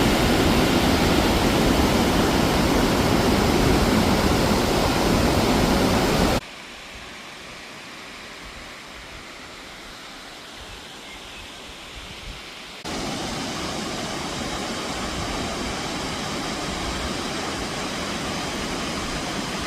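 Steady rush of falling water, like a waterfall, heard in three back-to-back clips: loud at first, much fainter from about six seconds in, then louder again for the last seven seconds.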